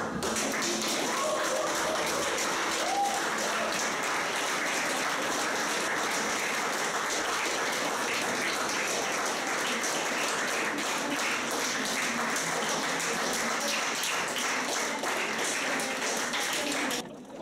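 Crowd applauding: dense, steady clapping that cuts off suddenly near the end.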